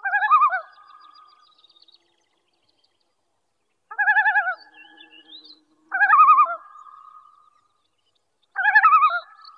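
Common loon giving short wavering tremolo calls, four in all: one at the start, two more about four and six seconds in, and one near the end.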